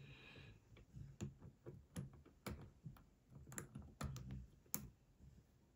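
Faint, irregular clicks and scrapes of a medium hook pick working through the warding and pin stack of a Euro cylinder pin-tumbler lock held under light tension, with one sharper click about three-quarters through.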